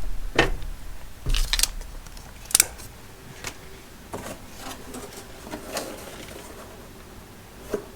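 Scattered light clicks and taps from handling a cordless impact wrench and its belt clip, about half a dozen over several seconds.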